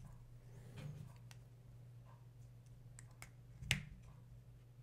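Small plastic clicks and taps as a Lightning-to-30-pin adapter carrying a Blue Mikey microphone is seated and then plugged into an iPod Nano's Lightning port, the sharpest click a little before the end, over a faint steady low hum.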